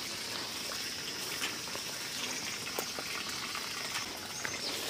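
Water running steadily from an outdoor standpipe tap and splashing into a concrete basin.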